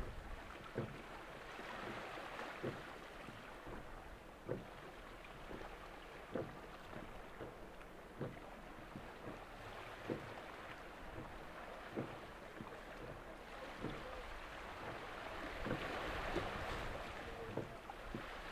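Wind and water ambience on an open shore, with a soft low knock repeating about once a second.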